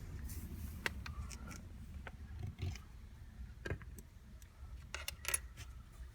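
Small metal hand tools and Torx bits clicking and clinking against metal parts, a few scattered sharp clicks with the loudest near the end.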